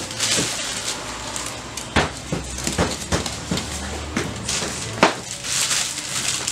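Irregular knocks and clicks with crinkly rustling, from heong peah biscuits being handled and packed into plastic bags at a steel counter. A low steady hum runs underneath.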